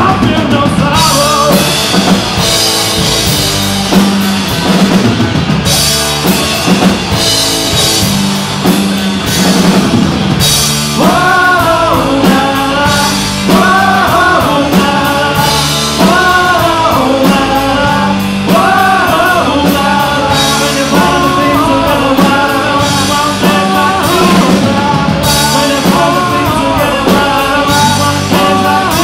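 Live rock band playing: electric guitars, bass and drums, with sung vocal phrases coming in about eleven seconds in.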